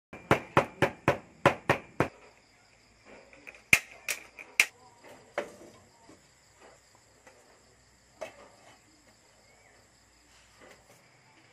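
Knife chopping onions on a wooden cutting board: about seven quick even chops in the first two seconds. Then a few scattered knocks and clanks as a metal wok is handled, over a faint steady chirring of crickets.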